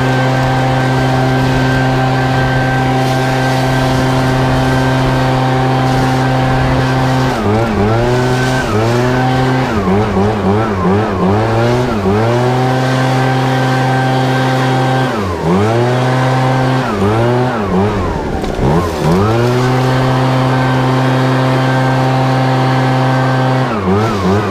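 ECHO PB-8010 backpack leaf blower's two-stroke engine running at full throttle, dropping and rising in pitch several times as the throttle is eased off and squeezed again, with quick repeated dips near the end.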